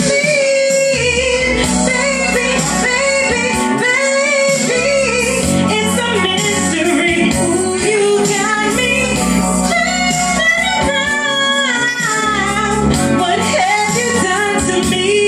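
A woman singing a slow, soulful melody into a handheld microphone over instrumental backing music, her voice sliding and bending between held notes.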